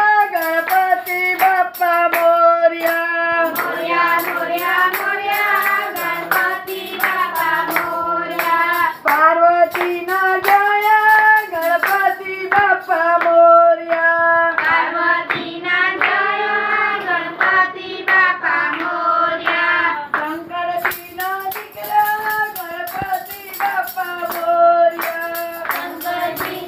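A group of children and women singing a devotional song to Ganesh together, with rhythmic hand clapping near the start and again in the last few seconds.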